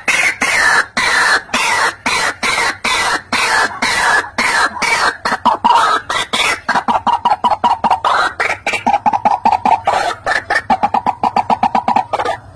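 White-breasted waterhen calling: a fast series of harsh, croaking "ruak-ruak" notes. About halfway through it settles into a rapid, even pulsing of about six notes a second.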